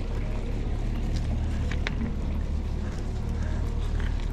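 Mountain bike riding up an unpaved gravel road, with a steady low rumble and scattered clicks and rattles from the tyres and bike on loose stones.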